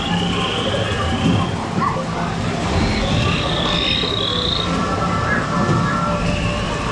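Themed-ride jungle soundscape: repeated short chirping and croaking creature calls over soft ambient music and a steady background hiss.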